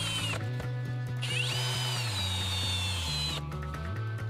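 Cordless drill spinning a wire wheel brush against a trim ram shaft to scrub off marine growth. Its high whine runs in spurts: it stops twice, spins back up each time, and its pitch slowly falls while the wheel works the shaft.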